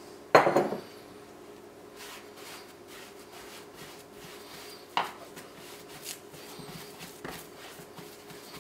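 A glass mixing bowl is set down with a clunk about half a second in. After it come faint rubbing and pressing sounds as crumbly cheddar cracker dough is squeezed into a ball by hand on a plastic cutting board, with one sharper tap about five seconds in.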